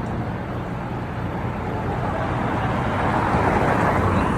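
Street traffic and engine noise: a steady low engine drone with road noise, growing louder from about two seconds in.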